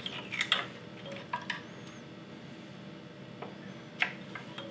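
Small metal parts clicking and clinking as a choke lever and its linkage are handled and fitted on a small-engine carburetor. There are a few quick clicks at the start, two more about a second and a half in, and one sharp click about four seconds in. A steady low hum runs underneath.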